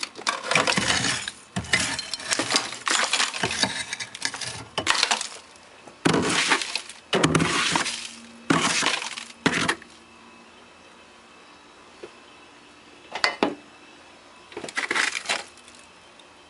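Packed frost and ice in a freezer being chipped and scraped with a wooden-handled metal tool. It is a run of rapid crunching, grating strokes, with ice chunks breaking loose and clinking, and it stops about ten seconds in. Later come two brief crunches as loose ice is handled.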